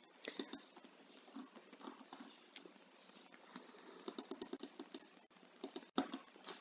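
Faint, irregular small clicks and taps. Just after four seconds in comes a quick run of ticks, and a sharper click follows near six seconds.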